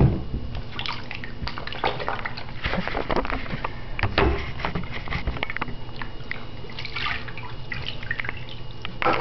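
Water splashing, sloshing and dripping in a bathroom sink as a ferret is bathed by hand, in many small irregular splashes, with a louder bump at the very start.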